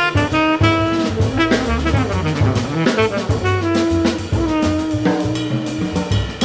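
Small jazz quartet playing: trumpet and baritone saxophone carrying the melody in held and moving notes over double bass and a drum kit.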